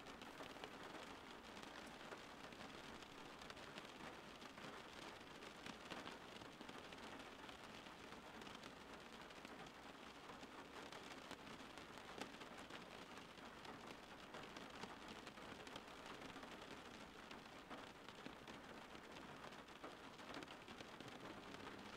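Faint, steady rain falling, an even hiss of many small drops pattering.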